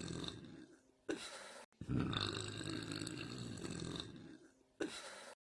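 A girl's deep, slow burps: the end of one trails off at the start, then a long burp let out slowly begins nearly two seconds in and fades out over about two and a half seconds. A brief, short sound comes after each burp.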